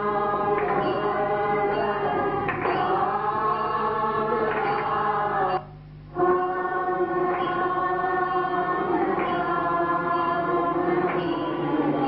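A group of voices chanting together on long held notes, with a short break between phrases about halfway through.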